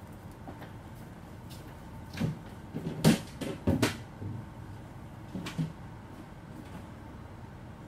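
A few short knocks and bumps from household handling: a cluster of sharp ones between about two and four seconds in, the loudest about three seconds in, then two softer ones about five and a half seconds in, over quiet room tone.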